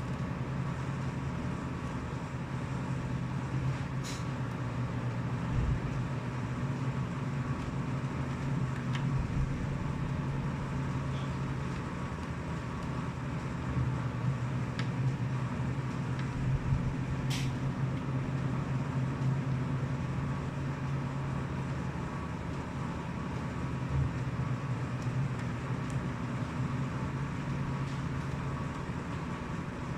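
Steady low hum with a few faint, sharp clicks.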